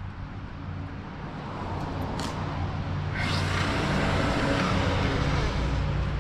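Earthquake W500 electric log splitter running, its electric motor and hydraulic pump giving a steady low hum. About halfway through, a rushing hiss comes in over the hum and it grows louder.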